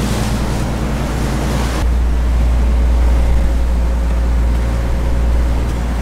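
Lobster boat's engine running steadily underway, a loud low drone, with wind and rushing water over the hull. About two seconds in, the wind and water hiss falls back and the engine drone gets louder.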